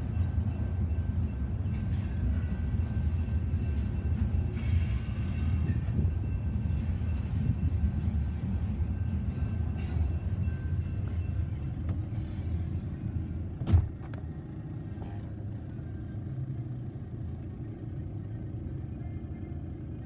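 Cars of a manifest freight train rolling past with a steady low rumble, faint steady tones sounding above it. A sharp knock about 14 seconds in, after which the rumble is quieter.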